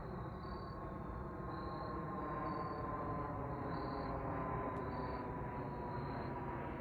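Distant aircraft engine rumble overhead, with a thin engine whine slowly dropping in pitch as it passes. Crickets chirp steadily in the background.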